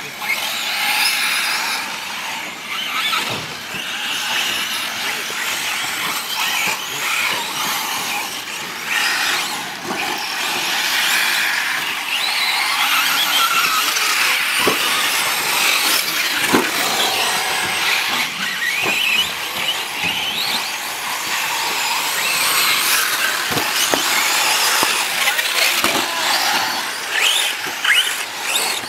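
Several 1/10-scale electric RC short-course trucks racing, their motors whining at a high pitch that rises and falls with the throttle, with a few sharp knocks along the way.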